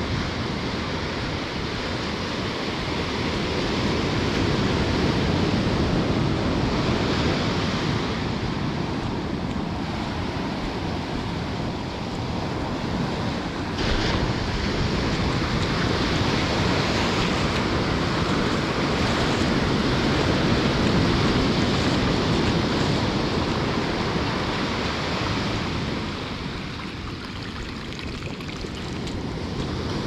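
Ocean surf breaking and washing up the sand at the water's edge, a steady rushing that swells and eases slowly with the waves.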